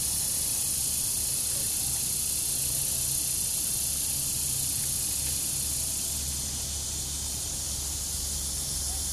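Steady high-pitched insect chorus, like cicadas or crickets, over a low outdoor rumble. It eases off a little after about six seconds.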